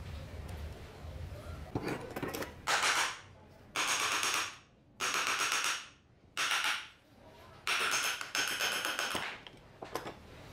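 Six short, harsh scraping bursts, each under a second, the last two almost run together, with a few light clicks before and after, as the old electric chainsaw's metal gearbox cover is worked loose from its housing.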